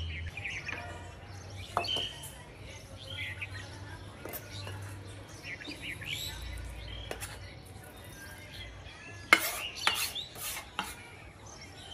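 Chef's knife scraping hand-minced chicken off a wooden chopping board into a ceramic bowl, with a single knock about two seconds in and a quick run of sharp knocks and clinks near the end as the knife and board strike the bowl.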